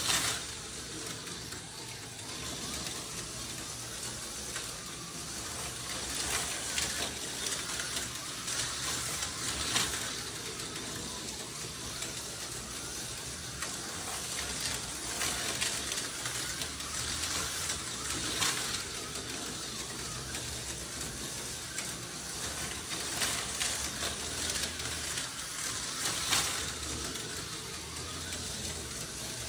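Two TYCO HO-scale slot cars racing around a plastic track: a steady high whirring hiss from their small electric motors and pickup shoes on the rails, with brief louder swells every few seconds.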